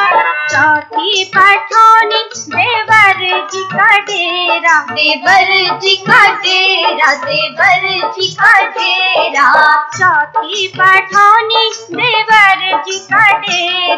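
Bhojpuri dehati folk song: a high, ornamented melody line over a steady low beat.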